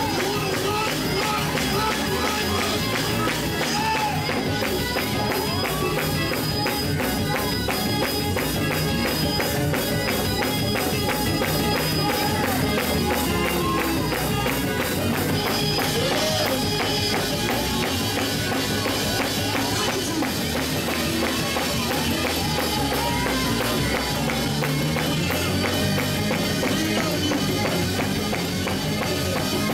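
Live gospel praise-break music with a fast, steady beat.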